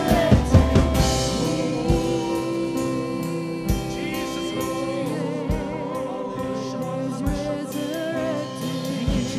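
Live worship music: a band and singers performing a slow gospel worship song, voices holding long notes over sustained chords, with a few scattered drum hits.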